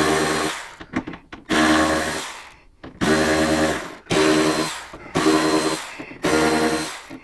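Red power ratchet with a T20 Torx bit backing out saddlebag latch screws: a steady motor whine in six short runs of about a second each, each run tailing off before the next.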